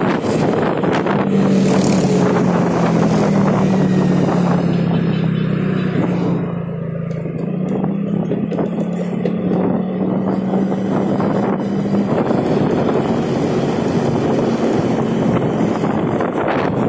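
Motorcycle engine running steadily while riding, heard from on board the bike; it eases off briefly about six seconds in, then carries on.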